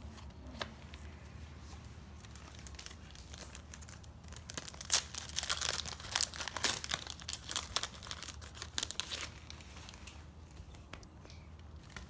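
A foil Match Attax trading-card packet being torn open and crinkled in the hands: a dense run of crackling and tearing from about four and a half seconds in until about nine seconds, loudest near the start of the run, with only soft handling before and after.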